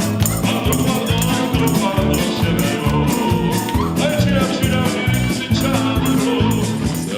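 Upbeat Gypsy-style band music with a fast, steady beat and busy instrumental lines.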